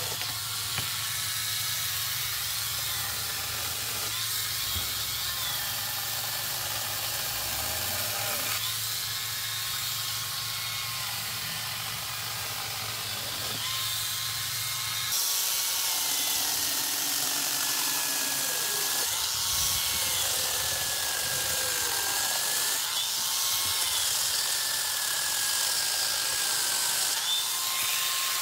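Battery angle grinder converted into a small chainsaw, cutting tree branches in several short runs, its motor whine sagging in pitch under load. It gets louder about halfway through.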